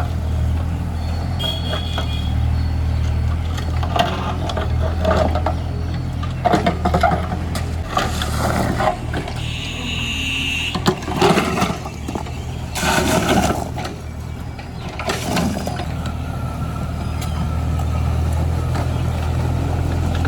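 Mini JCB backhoe's diesel engine running steadily, with intermittent clanks and rattles through the middle of the stretch and a brief high-pitched tone about ten seconds in.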